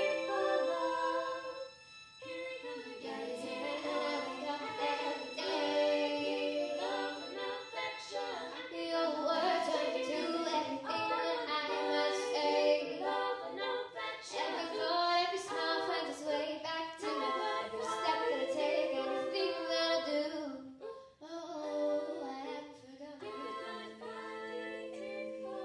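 A small group of young singers singing a song, with a string ensemble.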